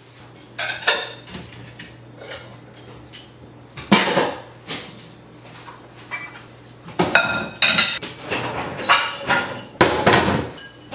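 Kitchen clatter: jars and dishes being taken out and set down on a counter, and a cupboard opened, giving a string of separate knocks and ringing clinks, the busiest stretch in the second half.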